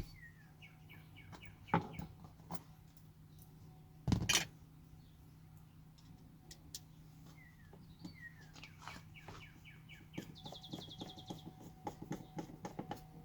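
Songbirds chirping in short repeated notes, with a fast trill about ten seconds in. Sharp clicks and one loud thump about four seconds in come from work on the door trim and its last screw.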